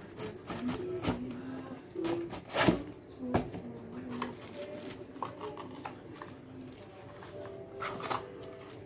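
Cardboard box packaging and a plastic bag being handled: irregular crackling and scraping as the cardboard insert and the bagged webcam are pulled out, loudest in a burst of crinkles about three seconds in.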